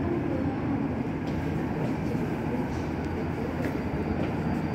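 Incheon Subway Line 2 driverless train moving along a station platform: a steady low rumble with a few faint clicks.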